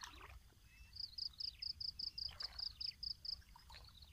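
Faint water sloshing as a man wades waist-deep through floodwater, with a bird calling in a quick run of short, high, even notes, about five a second, from about a second in until near the end.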